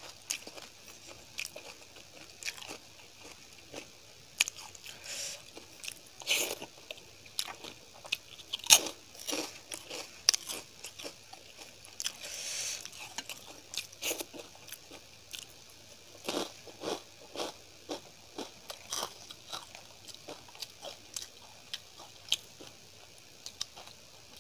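Close-miked chewing of rice and paneer curry eaten by hand: wet mouth clicks and lip smacks at irregular intervals, the loudest about nine seconds in.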